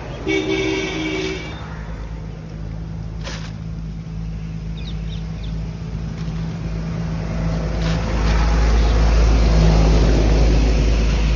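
A motor engine running with a steady low hum that grows louder about eight seconds in. A short pitched tone, like a voice or horn, sounds near the start.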